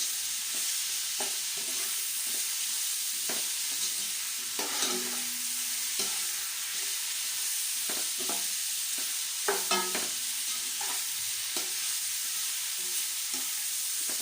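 Onion and garlic frying in olive oil in a pan, a steady sizzle, with a utensil stirring and knocking against the pan every second or two.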